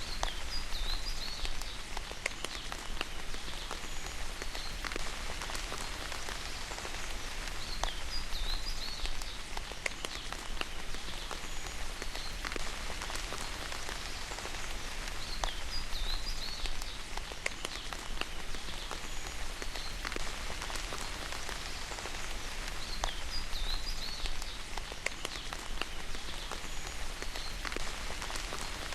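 Steady rain falling, with scattered sharper drips. A short, high, wavering chirp recurs every several seconds above the rain.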